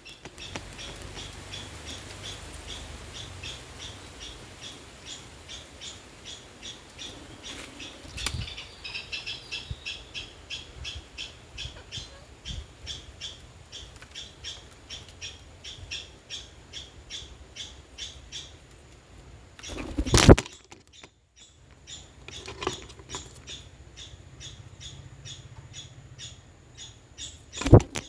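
Birds chirping in a quick, steady series of short, high calls, broken by loud, sudden bursts about eight seconds in, about twenty seconds in (the loudest) and near the end.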